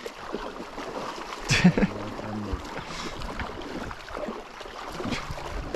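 Canoe paddles dipping and pulling through calm river water, with small splashes and knocks, and a louder splash about a second and a half in.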